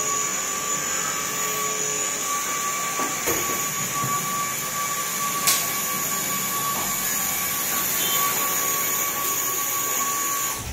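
Flying spinner ball toy's small electric fan whining steadily as the ball spins and flies, with a single sharp click about five and a half seconds in.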